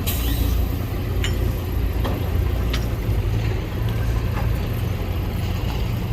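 Heavy diesel engine of earthmoving machinery running steadily with a low rumble, with a few sharp metallic knocks at irregular intervals.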